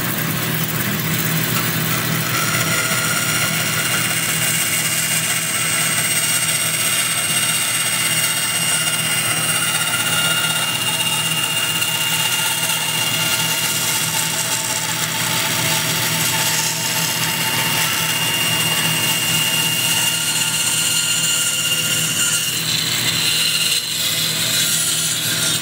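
Bandsaw running steadily while its blade cuts through a wooden block, sawing out a spoon blank.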